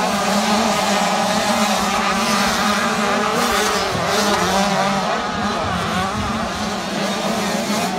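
Several 65cc two-stroke motocross bikes revving as they race round a dirt track, their engine notes rising and falling in pitch.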